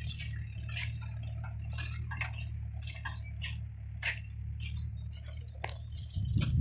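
Mahindra 575 tractor's four-cylinder diesel engine running as a steady low drone while pulling a loaded trailer, with irregular sharp clicks and crunches over it, a few each second. A louder low rumble comes in near the end.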